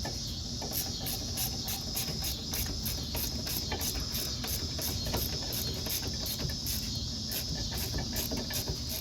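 A ratchet running in the hub assembly's mounting bolts: a steady series of light, quick clicks, several a second. Under them is a constant high chirring of crickets.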